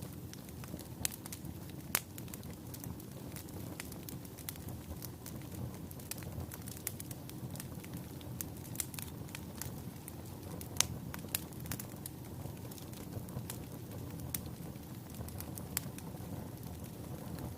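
Wood fire burning in a fireplace: a steady low rush of flames with irregular crackles and sharp pops from the burning logs, a few louder pops standing out.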